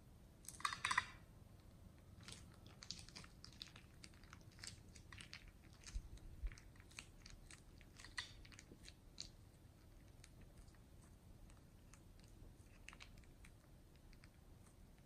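A clear plastic piping bag crinkling as it is squeezed, with plastic pearl beads clicking against each other as they are pushed out. A burst of loud crackling comes about half a second in, followed by scattered sharp clicks for several seconds that fade out near the end.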